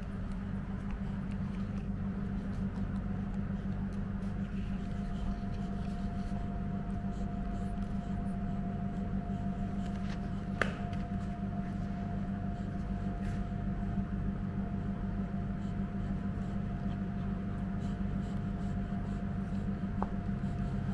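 Great Pyrenees puppy gnawing on a plush bone toy and a rope toy: faint soft chewing and rustling over a steady low hum, with a faint steady whine and one sharp click about halfway through.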